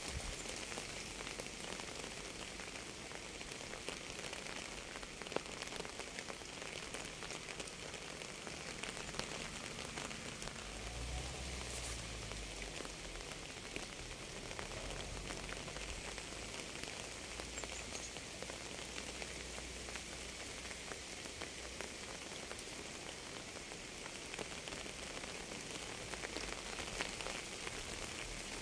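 Steady rain falling, an even hiss full of small drop ticks. A low rumble sits underneath for about ten seconds midway.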